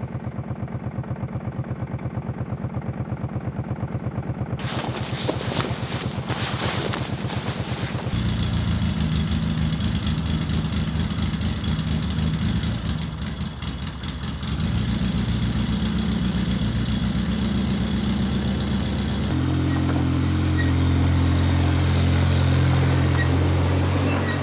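ATV engine idling with a steady, even pulse; the note shifts about eight seconds in and grows louder and higher in the last few seconds as the quad is driven off. A scratchy noise sits over the engine for a few seconds before the first shift.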